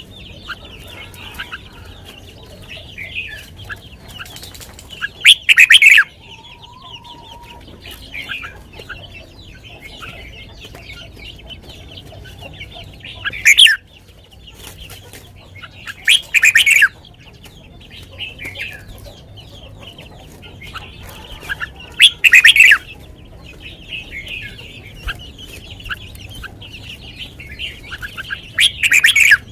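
Red-whiskered bulbul singing short, loud song phrases five times, several seconds apart, over a steady background of fainter chirping from other birds.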